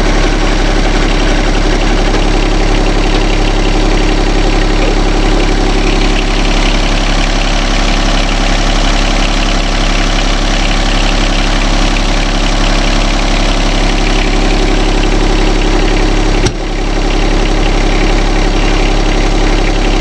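John Deere 2320 compact tractor's three-cylinder diesel engine running steadily. About sixteen seconds in the sound breaks off abruptly and picks up again.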